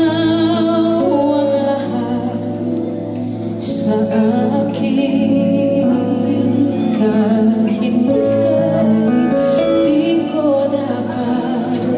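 A woman singing a slow Tagalog love ballad live into a microphone, with long held notes and vibrato, over instrumental accompaniment.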